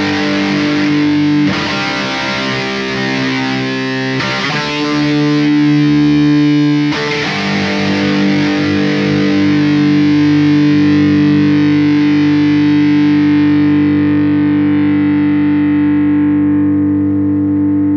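Charvel electric guitar played through distortion: a few chords struck in turn, the last one, about seven seconds in, left to ring out and slowly fade.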